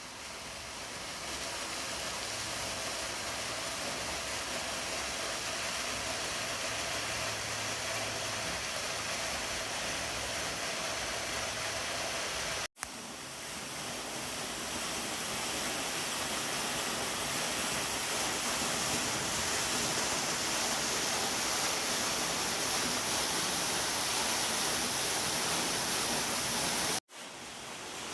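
Hedge Creek Falls, a 35-foot waterfall, rushing steadily as a constant hiss of falling water. The sound drops out for a split second twice, about halfway through and near the end.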